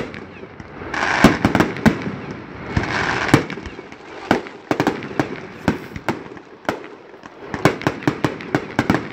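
Fireworks display: aerial shells bursting in a string of sharp bangs and pops, thickest about a second in and again near the end.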